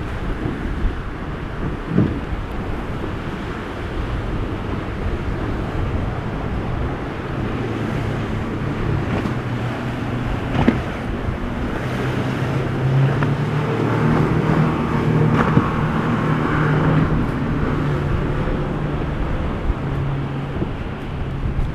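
Sportsman boat's engine running as the boat approaches, a steady drone that grows louder from about halfway in.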